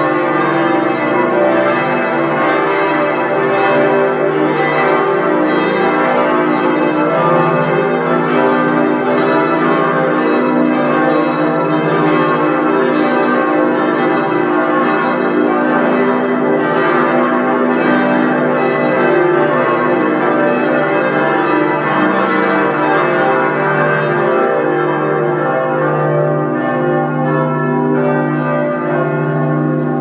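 Several church bells of Giotto's Campanile, the bell tower of Florence Cathedral, ringing together in a loud, continuous peal of overlapping strokes that keeps going without a break.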